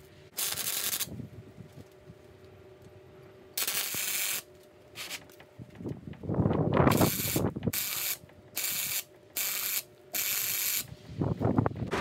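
Welding torch tack welding a 2 mm steel patch onto a Land Rover chassis rail: about seven short bursts of crackling arc, each under a second, coming faster near the end. A louder low rustling noise comes about six seconds in.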